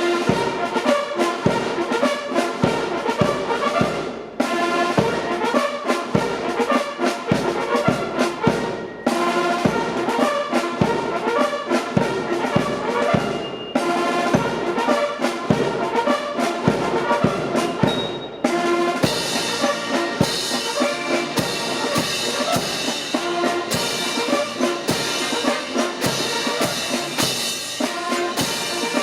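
Military marching band of brass and drums playing a march, with a steady drumbeat under the brass and brief breaks between phrases.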